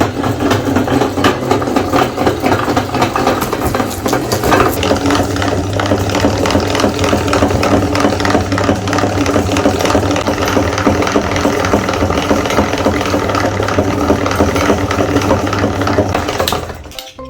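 Electric meat grinder running, its motor humming steadily while the auger crushes and extrudes Snickers bars with a dense rapid clicking rattle; the grinding stops near the end.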